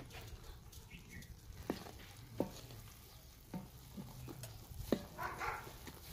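Wooden spatula stirring thick, warm jaggery syrup mixed with mustard oil in a metal karahi, knocking sharply against the pan several times, with a brief scrape near the end.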